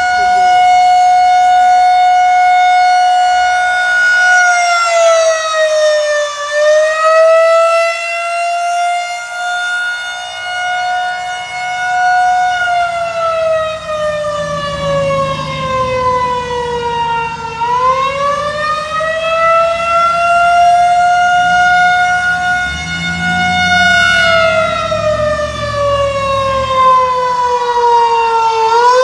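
Federal Signal 2001-130 outdoor warning siren sounding in a wail during a test. Its single loud, pitched tone holds steady, then drops in pitch and winds back up three times: briefly at about 5 seconds in, then deeper dips at about 17 seconds and near the end.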